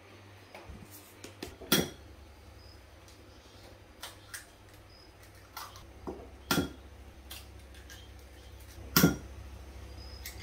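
Eggs being cracked on the rim of a ceramic bowl: three sharp knocks, spaced a few seconds apart, with lighter clicks and shell taps between them.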